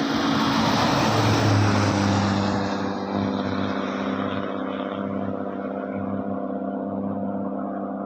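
Intercity bus passing on the highway: tyre and engine noise swell to a peak about a second and a half in, then a steady engine drone as it pulls away.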